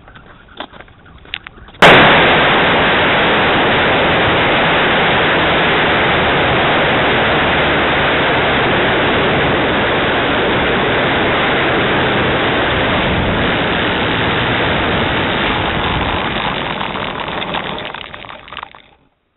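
Model aircraft engine at high power heard through the wing-mounted onboard camera's small microphone, overloaded into a steady, loud rush of noise with no clear pitch. It comes on suddenly about two seconds in after a few faint clicks, and fades and cuts off near the end.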